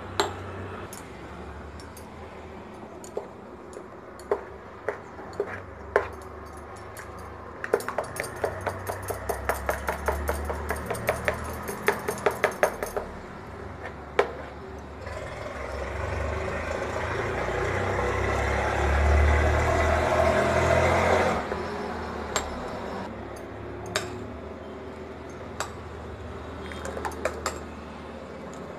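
Metal spoon stirring batter in a steel bowl: scattered clinks against the bowl, a quick run of clinks at about five a second in the middle, then several seconds of steady swishing as the batter is stirred hard.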